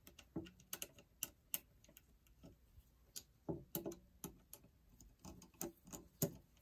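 Faint, irregular small clicks and taps as a wire is fitted under a terminal screw on a well pump pressure switch and a screwdriver is set to the screw.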